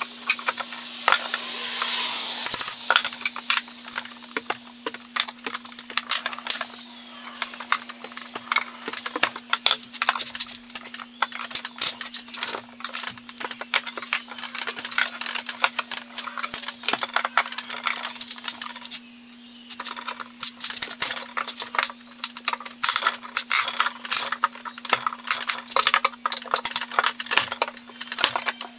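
Dense, irregular metallic clicks and scrapes as a hand tool works the metal strap and nails on an old wooden tool chest, with a short lull about two-thirds through. A steady low hum runs underneath.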